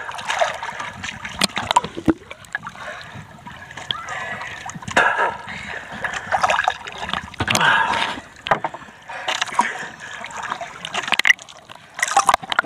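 Sea water splashing and sloshing irregularly against a camera held at the surface, with sharp crackles as the microphone dips in and out of the waves.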